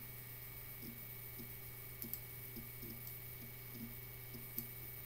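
Quiet room tone: a faint steady electrical hum with a scattering of small soft clicks and ticks.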